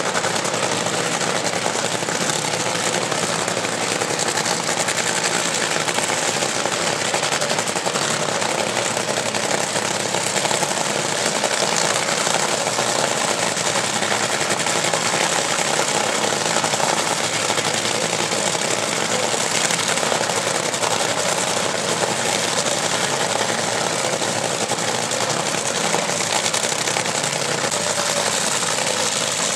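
Supercharged nitromethane V8 engines of Top Fuel dragsters idling with a rapid, harsh crackle that stays steady throughout.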